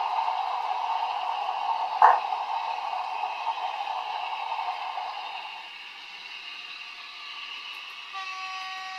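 Model diesel locomotive's DCC sound decoder playing a diesel engine running through a small onboard speaker, with a sharp click about 2 seconds in; the engine sound drops quieter past the halfway mark, and a horn sounds near the end.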